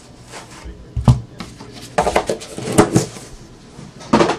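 Trading cards and packs handled on a tabletop: a string of sharp clicks, taps and rustles, with louder knocks about a second in, between two and three seconds, and just before the end.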